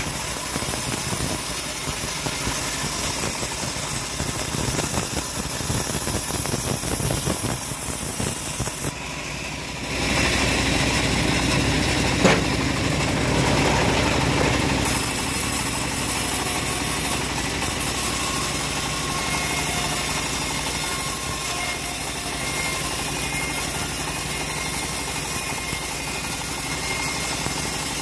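Home-built bandsaw mill running with its blade cutting lengthwise through a hard jowar-wood beam: a steady machine drone mixed with sawing noise. It dips briefly about nine seconds in, then a single sharp knock comes a couple of seconds later.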